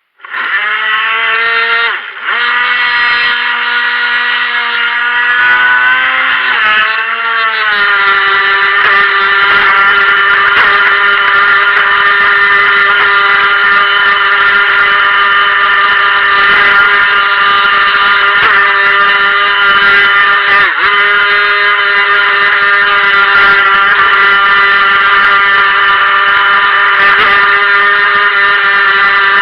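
Electric whine of the Helion Rivos RC boat's stock brushed motor under throttle. It starts suddenly, wavers in pitch through the first few seconds, then climbs to a higher pitch about eight seconds in and holds it at a steady run.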